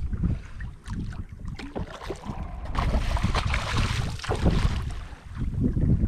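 Wind buffeting the microphone with a steady low rumble, while a hooked barracuda splashes and thrashes at the surface beside the kayak. The splashing comes in irregular bursts, heaviest about halfway through.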